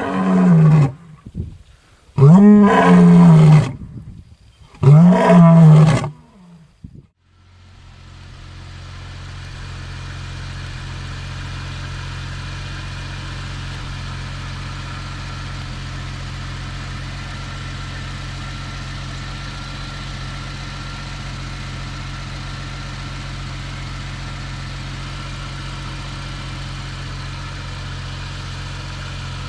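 Jaguar XJS V12 engine revved in three short blips, each rising and falling in pitch, then settling into a steady idle that builds up over a few seconds and holds even.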